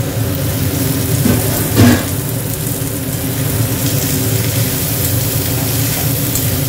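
Chopped tomatoes and potatoes sizzling in hot oil in a metal kadai while a steel spatula stirs and scrapes them. There is a loud clank against the pan about two seconds in, over a steady low hum.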